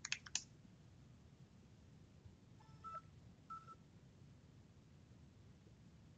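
Near silence: room tone, with a couple of computer keyboard clicks right at the start and two faint short electronic beeps about three seconds in.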